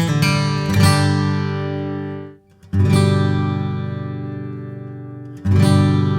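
Gibson Hummingbird Elite square-shouldered dreadnought acoustic guitar being strummed. The chords are muted to near silence a little before halfway, then two full chords are struck, one shortly after and one near the end, each left to ring out and fade.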